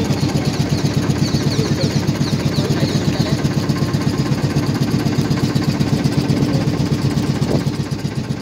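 Motorboat engine running steadily with an even, rapid throb.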